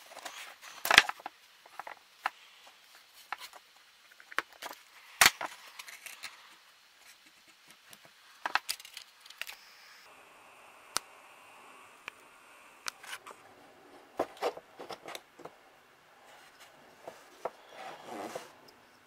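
Scattered clicks, taps and light clinks of a small metal hand tool and a bottle cap being handled on a wooden workbench, with two sharper clicks about one second and five seconds in.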